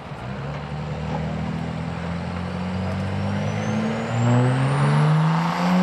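Modified diesel pickup engine running hard at a truck pull, its pitch climbing steadily and getting louder about four seconds in, with a high turbocharger whistle rising in pitch the whole time.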